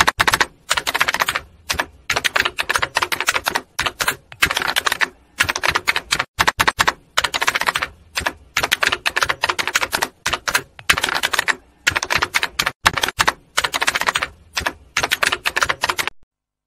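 Typewriter typing sound effect: fast runs of key clacks in bursts of a second or so, separated by short pauses, stopping shortly before the end.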